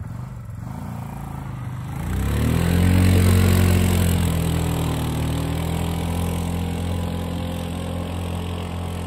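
Quad bike (ATV) engine idling, then revving up about two seconds in as it pulls away, its steady drone slowly fading as it rides off.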